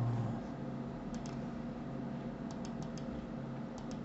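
Computer mouse button clicking: about eight sharp clicks in small quick groups, over a steady low hum.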